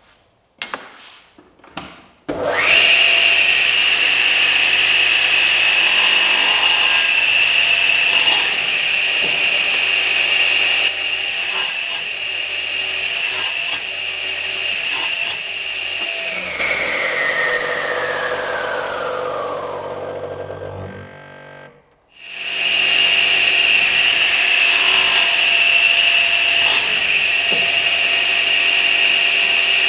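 Small clicks, then an electric woodworking power tool starts and runs with a steady high whine. It is switched off and spins down, the whine falling in pitch over several seconds, then it is started again and runs on.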